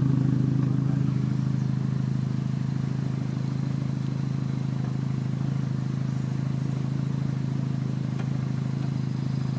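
Steady low mechanical hum with a fast, even pulse, holding the same pitch and level throughout.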